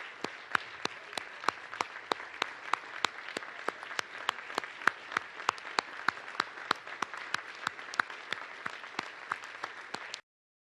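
Audience applauding: a dense patter of many hands with sharp single claps standing out at a steady pace. It cuts off suddenly near the end.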